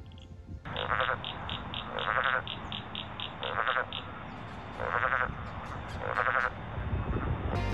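Frogs calling: a short, rasping, pulsed call repeated five times about every second and a quarter, with a faster, higher chirping of about four a second alongside in the first half.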